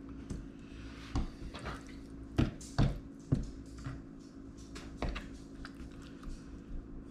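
Raw chicken being cut and handled with a knife: wet squishing of the meat with several sharp knocks of the blade or pieces on the board, over a steady low hum.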